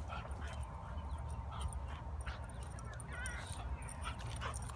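Two dogs, a white Boxer puppy and a Staffordshire bull terrier x Rhodesian ridgeback, play-fighting with short whines and yips over a steady low rumble. A brief wavering whine comes a little past three seconds in.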